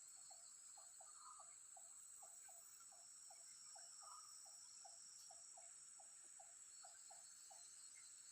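Faint outdoor insect chorus: a steady high drone of crickets or cicadas, with a run of short, low repeated calls, about three a second, from another animal that stop near the end.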